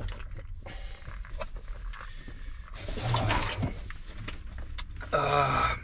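Rustling and handling noises inside a vehicle cab over a steady low rumble, with a louder rustle about three seconds in and a brief drawn-out groan from a person near the end.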